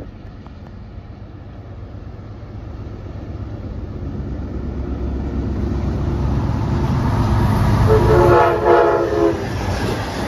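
Amtrak GE P42DC diesel locomotive approaching and passing, its low rumble building steadily. About eight seconds in it sounds one short blast of its multi-tone horn, lasting just over a second.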